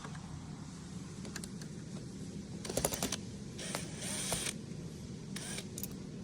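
Hand tools and small screws being worked loose from the mounting of a car's dashboard touchscreen: scattered clicks, a cluster of sharp clicks a little before the middle, then a brief scraping rattle and a few more clicks, over a steady low hum.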